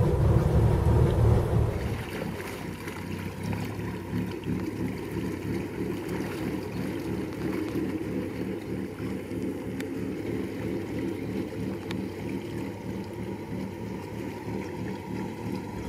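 A motor cruiser's engine running under way. It is loud and steady for about two seconds, then becomes quieter, a low even throb.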